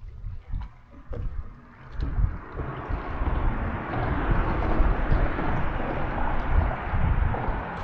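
Wind buffeting the microphone on a boat, with gusty low rumbling; about two seconds in a steady rushing noise builds and holds.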